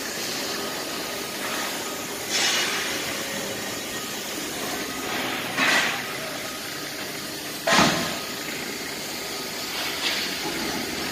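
Steady mechanical running noise with faint steady tones, broken by four short loud bursts of hiss-like noise; the strongest, about eight seconds in, starts suddenly with a deeper thud.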